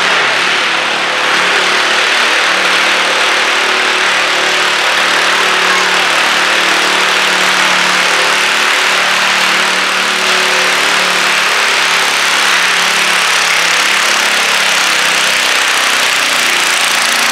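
Modified garden tractor engine running hard under load through a straight exhaust stack, pulling a weighted stoneboat sled across the dirt. The note holds loud and steady throughout the pull.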